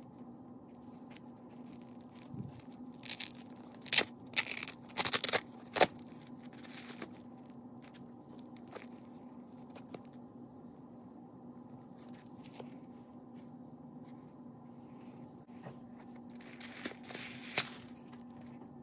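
Tissue paper rustling and crinkling as it is handled and pulled out of leather sandals, in short bursts about four to six seconds in and again near the end, with a few light taps, over a faint steady hum.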